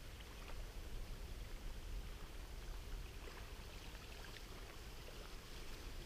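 Faint, steady outdoor noise: a constant low rumble under an even hiss, with a few faint scattered ticks.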